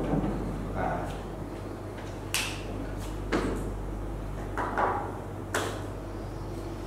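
Quiet room tone with a steady low electrical hum, broken by a handful of brief scratches and rustles: a marker writing on a whiteboard, then a person shifting about.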